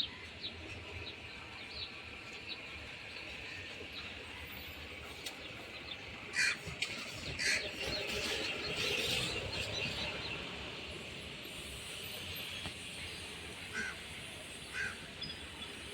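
Outdoor chorus of birds, sparrows chirping steadily with louder separate calls, likely from crows or pigeons, standing out about six and seven seconds in and twice more near the end.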